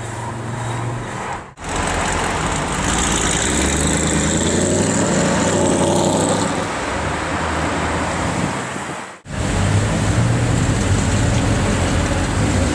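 Mercedes SLS AMG's 6.2-litre V8 running through an aftermarket Supersprint exhaust as the car drives past at low speed in traffic, with a deep engine note. The sound breaks off abruptly twice, about a second and a half in and about nine seconds in.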